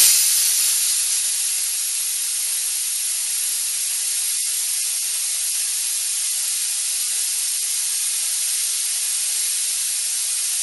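Compressed air blasting out of a tire inflator air gun held wide open, bleeding down an air compressor's tank: a steady, loud, high hiss that starts abruptly and runs on evenly. The compressor motor itself is not running.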